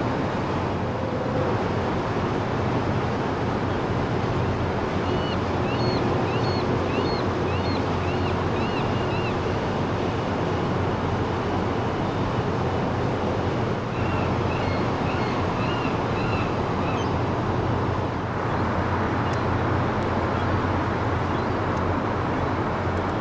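Steady low drone under a wash of wind and water noise, with a small bird chirping in two short runs about five and fourteen seconds in.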